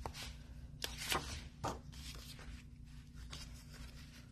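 Sheets of patterned paper rustling as they are leafed through and one is slid out of the stack: a few short, light rustles in the first two seconds, softer handling after, over a faint steady hum.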